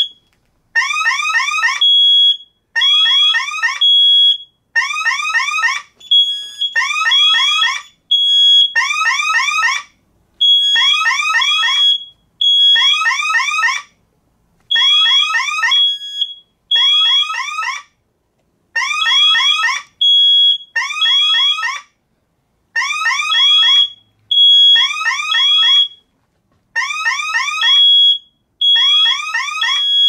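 Alarm siren of a DSC PowerSeries Pro panel sounding a fire alarm, set off by the wireless smoke detector: bursts about a second long, roughly every two seconds, each a run of quick rising sweeps. Between the bursts the alarm keypads' sounders give short high-pitched beeps.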